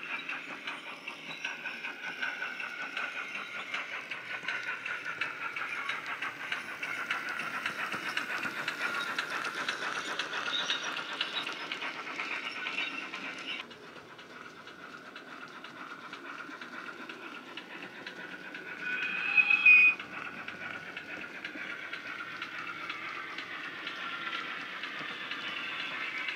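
Heljan 13XX pannier tank model's LokSound nano sound decoder playing steam locomotive sound through its small sugarcube speaker: a rapid chuffing exhaust beat as the model runs, with a short whistle blast about three-quarters of the way through.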